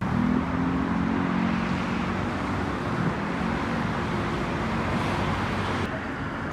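Steady city street traffic noise, with a low vehicle hum in the first few seconds.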